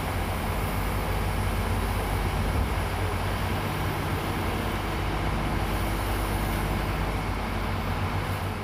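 Tracked hydraulic excavator's diesel engine running steadily under load as the boom and arm move, a steady low hum.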